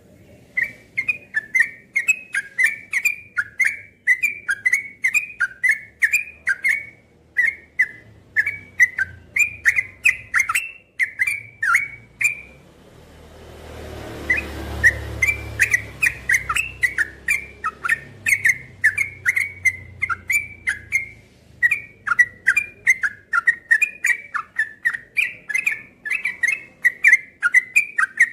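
Caged yellow-vented bulbul singing its rolling song: long runs of short, loud chattering whistled notes, about three a second, broken once about halfway through. During the break a low rushing noise swells and fades over a few seconds.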